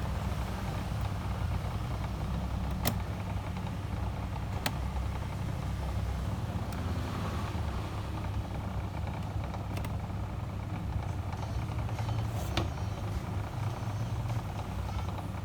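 Steady low background rumble with a light hiss, broken by a few single sharp clicks.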